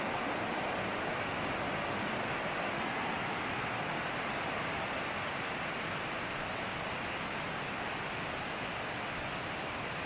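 Fast mountain stream rushing steadily over rocky ledges near a waterfall: a constant, even rush of water.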